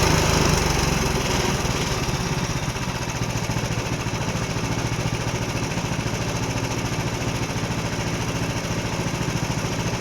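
Small gasoline engine of a Frontier OS31 portable sawmill running steadily with an even, pulsing beat.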